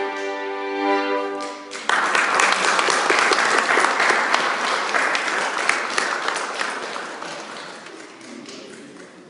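A violin ensemble holds a chord that ends just under two seconds in, and the audience breaks into applause at once; the clapping slowly dies away toward the end.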